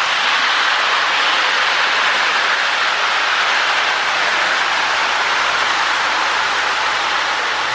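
Lionel 1666 O-gauge model steam locomotive running on the track, pulling its tender and cars: a steady whirring rumble of motor and wheels on the rails.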